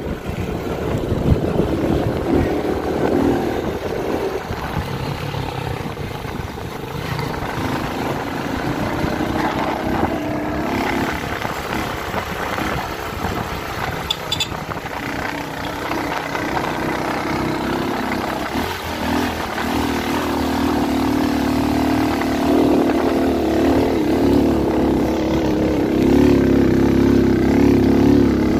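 Motorcycle engine running steadily under load, getting louder over the last several seconds.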